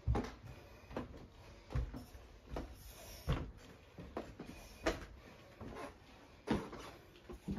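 Footsteps climbing the last few carpeted wooden stairs and walking on to a hardwood hallway floor, an even thud a little more than once a second.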